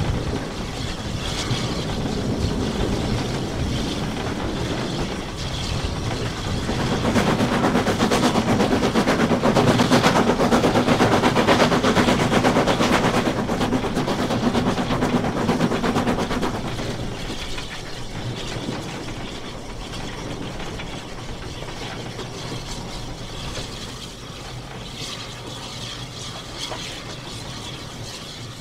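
Footplate noise of the Maunsell S15 4-6-0 steam locomotive No. 847 under way: cab rattle and rapid clatter of wheels and motion, with a louder stretch in the middle carrying a steady low tone. The noise eases off over the last third.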